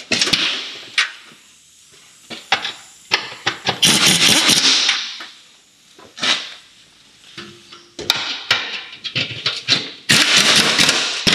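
Ratchet wrench clicking in several quick runs, with a few single metallic taps between, as 10 mm nuts are run on to hold a heat shield under the car.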